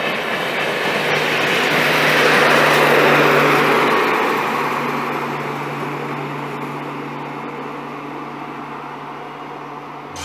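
A passenger train of LHB coaches rolls past: the rush of wheels and coaches peaks about two to three seconds in, then fades as the train draws away. Under it runs the steady hum of the rear power car's diesel generator, which fades along with the train.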